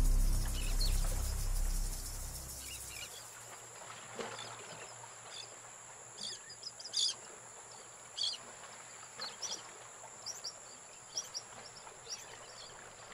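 Background music fades out over the first few seconds, leaving faint nature ambience: birds chirping in short calls every second or so over a steady high-pitched insect drone.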